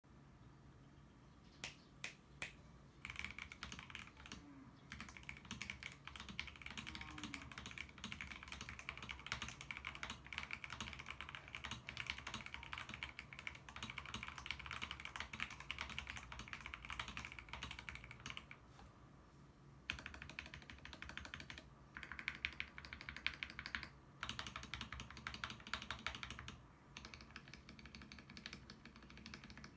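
Typing on a Lychee G66 Pro mechanical keyboard fitted with lubed Akko Jelly Black linear switches, GMK-style keycaps and foam, polyfill and tape mods. Three single keystrokes come first, then long runs of fast typing broken by a few short pauses.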